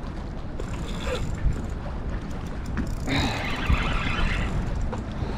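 Fishing reel's drag buzzing and clicking as a hooked striped bass pulls line, about three seconds in, for about a second and a half.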